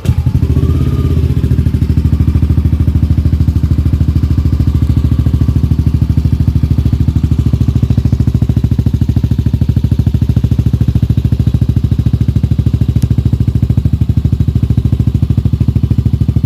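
Motorcycle engine fitted with a new stainless aftermarket exhaust pipe, starting up suddenly with a short rise in pitch, then idling steadily with an even, rapid exhaust pulse.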